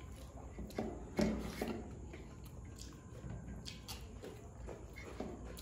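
Two people eating fried rice by hand from steel plates. Fingers rub and scrape against the metal, with faint chewing and small mouth clicks. There are scattered soft clicks, a few a little louder about a second in.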